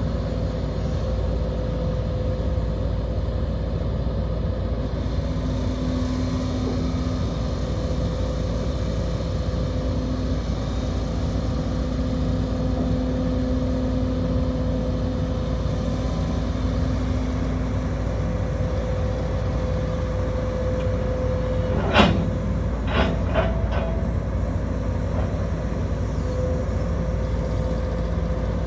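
2012 Case CX210B hydraulic excavator's diesel engine running steadily, with a steady whine over it as the hydraulics raise the boom and curl the bucket. About three-quarters of the way through comes one sharp metal clank, then a few lighter knocks.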